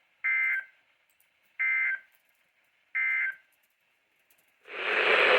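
Weather radio's end-of-message SAME data code: three short bursts of two-tone digital squawking about 1.4 seconds apart, marking the end of the warning broadcast. Near the end, loud radio static hiss comes in.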